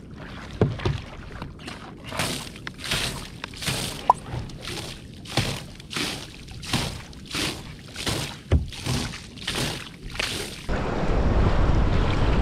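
Seawater thrown onto a kayak deck in quick rhythmic splashes, about one and a half a second, from a hand-worked tool, washing the deck after a tuna was landed. Near the end it gives way to steady wind and waves.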